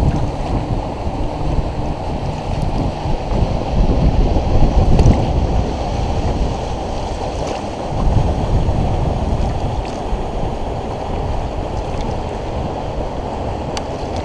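Wind buffeting the microphone over a low rush of river water, with stronger gusts about four seconds in and again about eight seconds in.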